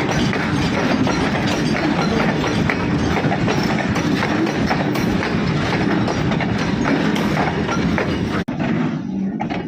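Coal train's freight wagons rolling over the rail joints: a steady loud rumble with rapid clickety-clack. The sound cuts out for an instant near the end, then fades.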